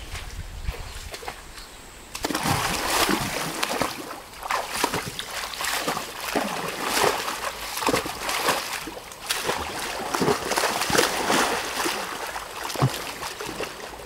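Irregular splashing and sloshing, starting about two seconds in.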